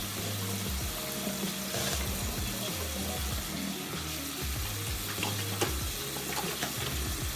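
Tap water running into a bathroom sink as a hand is washed with soap, a steady hiss. Soft background music plays underneath.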